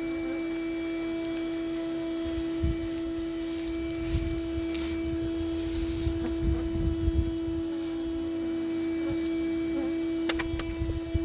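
Bee vacuum's motor running with a steady hum, with low uneven rumbles through the middle and a few sharp clicks near the end.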